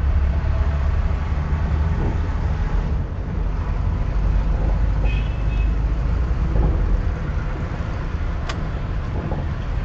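Steady low rumble of a car's engine and tyres heard from inside the cabin while driving slowly and picking up speed. A brief high tone sounds about five seconds in, and a single sharp click comes near the end.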